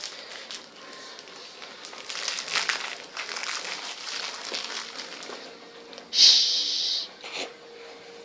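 Rustling and light handling noises, then a short, loud hiss about six seconds in that stops as suddenly as it starts.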